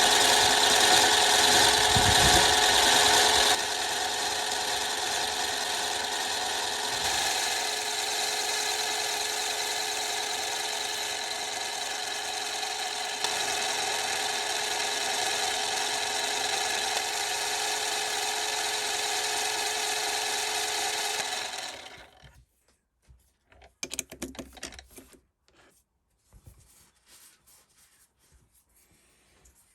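Mini lathe running while turning a mild steel workpiece, a steady machine whine, louder for the first three seconds or so, then even until it stops about 22 seconds in. A few faint knocks follow.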